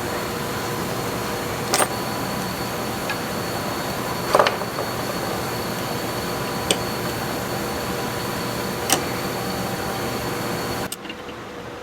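A steady mechanical hum with a few sharp clicks spaced about two seconds apart; the hum cuts off suddenly near the end.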